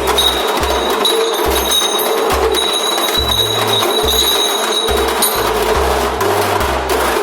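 Background music with a steady beat and a bass line of short low notes.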